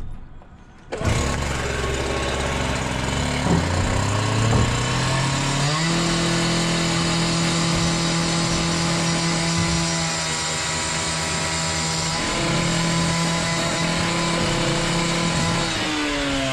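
Masonry disc cutter starting up about a second in and rising in pitch to a steady high-revving run, cutting masonry and raising dust, with a brief dip in revs in the middle.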